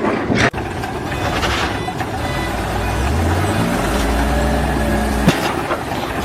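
Engine of a vehicle or machine running amid steady noise, with a low engine drone strongest in the middle and a single sharp knock about five seconds in.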